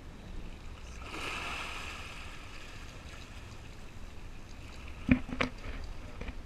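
Water rushing and sloshing against a small fishing boat's hull, with two sharp knocks in quick succession about five seconds in.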